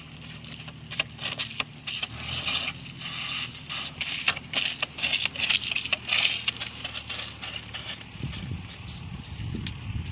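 Scraping, crunching and clicking of a broken water pipe being worked and forced back together at the joint, over a steady low hum.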